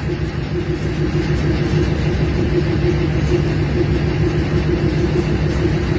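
A vehicle engine idling steadily with an even, unchanging hum.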